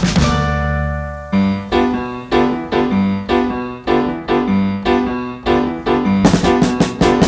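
Background music: a held chord dies away, then piano chords are struck on a steady beat, about two a second. Drums come in near the end.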